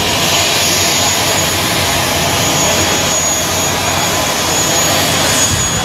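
An aircraft engine running, a loud, steady rushing roar with a faint thin high whine held above it.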